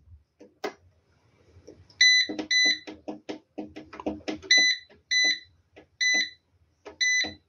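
Short, identical electronic beeps from the inverter's control panel as its buttons are pressed to step through the display readings, about six beeps over several seconds with soft clicks of the button presses between them.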